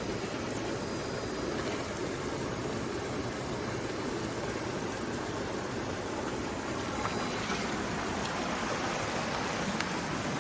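Steady rush of flowing stream water, with a faint high whine coming and going, typical of an RC crawler's electric motor.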